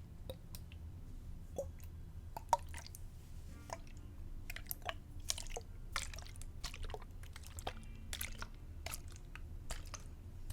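Irregular soft clicks, crackles and squishy sounds made close to a sensitive microphone, several a second and unevenly spaced, over a faint steady low hum.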